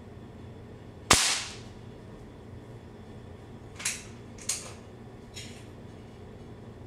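An air rifle firing a pellet: one sharp crack about a second in, with a short ringing tail. Two fainter clicks follow about three seconds later, then a third, fainter still.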